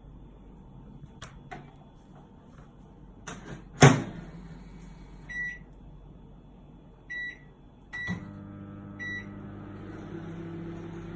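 Microwave oven door shut with a loud clunk, then four short keypad beeps, and the oven starts running about eight seconds in with a steady low hum.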